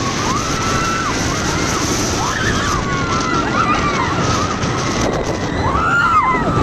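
Steady rush of wind on the microphone aboard a moving inverted steel roller coaster, with riders screaming and yelling over it in many short rising-and-falling cries.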